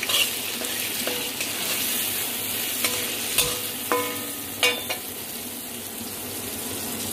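Prawns sizzling as they fry in mustard oil in a kadai, stirred with a metal spatula that clinks against the pan about four times in the middle.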